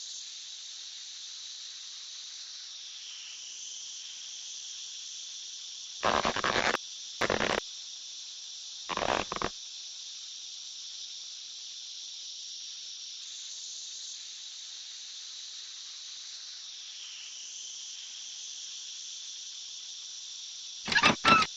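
Steady chirping of crickets, a cartoon sound effect. Three short, louder sounds cut across it about six to nine seconds in, and another comes at the very end.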